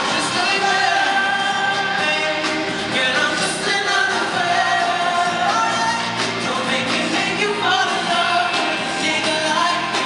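Live band with drums playing a slow song, with a male singer's voice held in long, bending sung lines over it.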